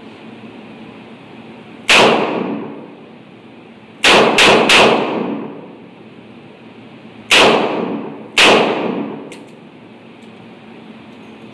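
Six shots from a Taurus RT 82 .38 Special revolver: one shot, then a quick string of three, then two more, each followed by a short echoing tail. A couple of faint clicks come after the last shot.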